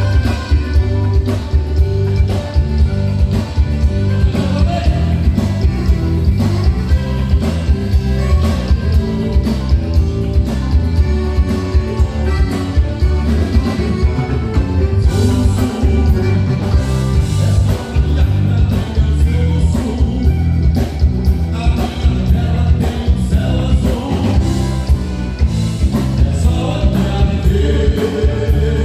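Live band playing gaúcho music, with a strong steady bass beat and pitched melody throughout.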